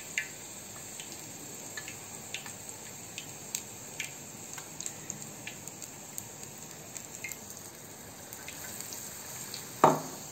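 Hot oil sizzling steadily in a kadai as battered chilli bajji deep-fry, with scattered small crackles and pops. There is one sharp knock shortly before the end.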